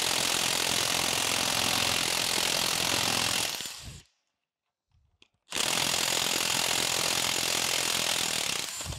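Impact gun hammering at a stubborn bearing-cap screw on a cast-iron cane mill. It runs for about three and a half seconds and dies away, stops for about a second and a half, then hammers again until near the end. The screw has not yet broken loose.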